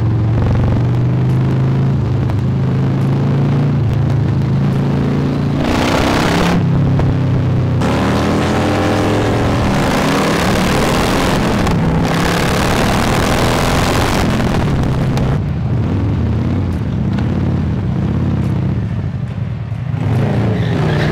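Harley-Davidson V-twin motorcycles riding, one with a new Jekill & Hyde valve exhaust: a steady low exhaust note, loud throughout, with louder rushing stretches about six to fourteen seconds in as the bikes speed up and pass close by.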